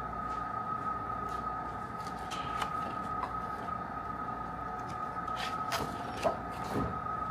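Laminated menu pages being turned by hand: a few plastic rustles and flaps, with a sharp snap about six seconds in. Underneath runs a steady high-pitched hum.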